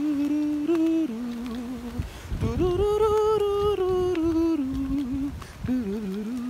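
A man humming a wordless melody, unaccompanied, holding long notes that step up and down in pitch with a slight waver. A low rumble comes in about two seconds in.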